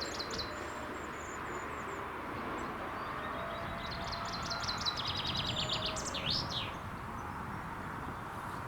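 Small songbirds singing rapid trilled phrases, one right at the start and a longer one about four seconds in that ends with a couple of quick sweeping notes, over a steady outdoor background hiss.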